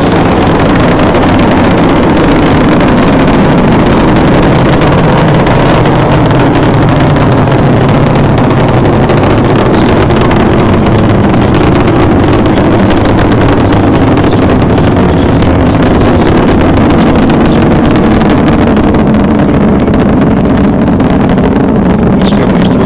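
Space shuttle's rocket engines and solid rocket boosters during ascent: a steady, loud rumble of rocket exhaust.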